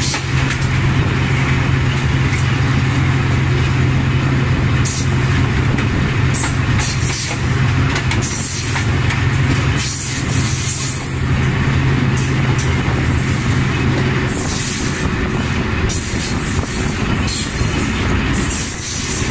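Pakistan Railways ZCU-20 diesel-electric locomotive running up close: a loud, steady low engine hum under a broad mechanical din, with repeated bursts of hiss. The low hum changes about fourteen seconds in.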